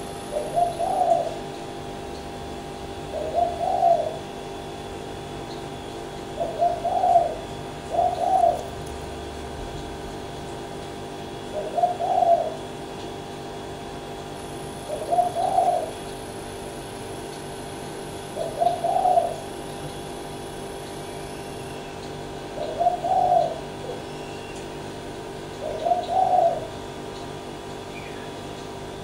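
A bird repeating a short, low call about every three to four seconds, nine times, with two calls close together about a third of the way in.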